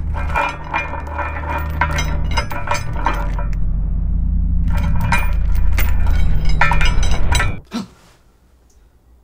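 Film sound-effect sequence: a low rumble builds in loudness under a dense run of crackling, glassy clinks and breaking sounds, then everything cuts off abruptly about seven and a half seconds in, followed by a single short hit.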